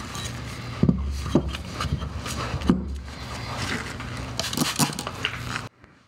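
A sharpening stone being handled and set into a metal clamp-style stone holder: rustling and scraping with several sharp knocks and clacks. The sound cuts off abruptly near the end.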